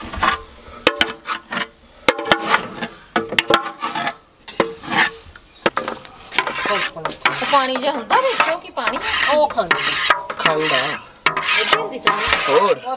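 A metal spatula scraping thick, fresh khoa off the inside of a metal cooking pot and then a brass bowl, in many short scraping strokes, with a wavering squeal in the second half.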